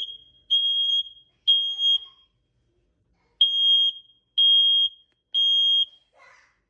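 X-Sense alarm sounding: loud, high-pitched beeps of about half a second each, one a second, in groups of three with a pause between groups. This is the standard three-beep fire alarm pattern.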